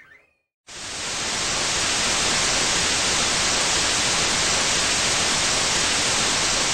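Static hiss sound effect, a steady even white noise like a detuned TV. It fades up quickly after a brief silence near the start.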